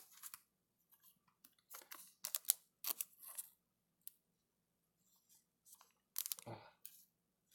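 Trading cards and a plastic card sleeve being handled: short scrapes and rustles in scattered bits, as a card is slid, with some struggle, into its protective sleeve. They come in a cluster from about two seconds in and again near the end.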